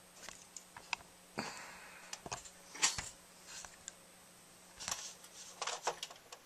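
Handling noise from a handheld camera being moved: irregular soft clicks and brief rustles over a faint steady hum.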